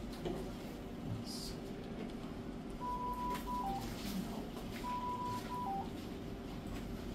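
Hospital bedside equipment alarm sounding twice, about two seconds apart: each time a long beep, a short beep at the same pitch, then a lower note. A steady equipment hum runs underneath.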